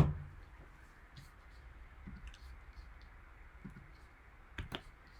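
One sharp click at the start, then a few faint, scattered light clicks over a low steady hum.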